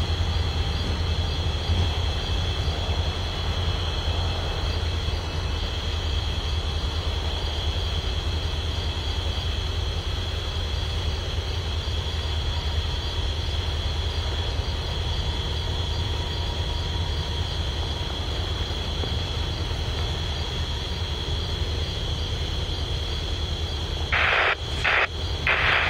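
Norfolk Southern diesel locomotives idling in a rail yard: a steady low rumble, with a steady high drone of night insects above it. A few short, louder noises come near the end.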